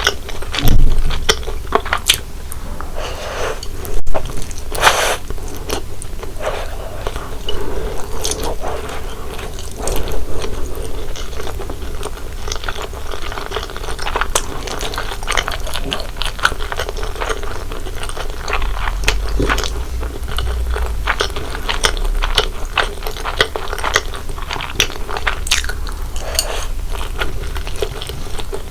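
Close-miked eating of corn-cheese buldak spicy stir-fried noodles: continual chewing with many small wet clicks and smacks, and a few louder bites about a second in and again about four and a half seconds in.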